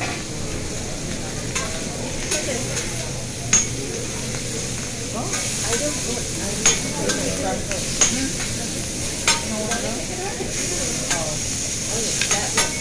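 Shrimp sizzling on a hibachi flat-top griddle while a metal spatula and fork scrape across the steel. Sharp metal clinks come every second or two as the utensils strike the griddle.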